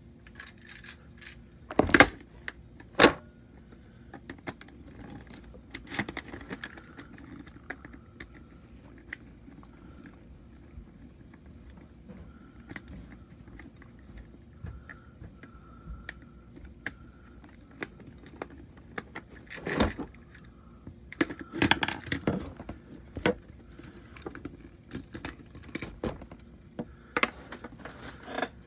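Plastic toy train parts and a screwdriver handled on a hard floor: scattered clicks, taps and clatter, with a few louder knocks about two seconds in and again around twenty seconds in.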